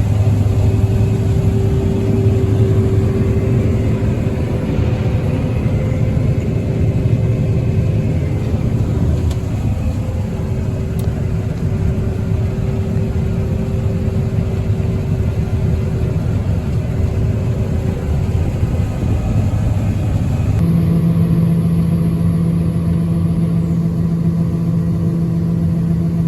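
John Deere 9400 combine running steadily under harvest, its diesel engine and threshing machinery giving a continuous drone. About 21 seconds in, the tone changes abruptly and a new steady low hum takes over.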